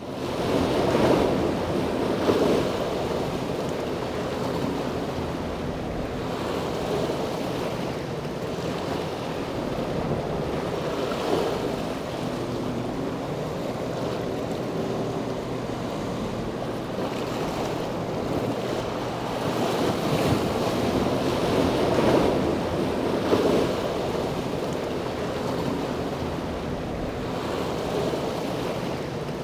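Wind buffeting an outdoor microphone over open harbour water: a steady rush of noise that swells and eases every few seconds, with a faint steady low hum underneath.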